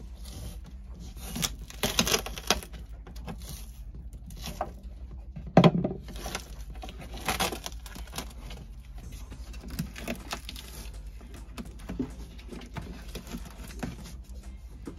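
Handling noise of work on a boat air-conditioner unit in a cabinet: tape and insulation cut and torn with a utility knife, rustling, and scattered clicks and knocks, the loudest a sharp knock about five and a half seconds in. A steady low hum runs underneath.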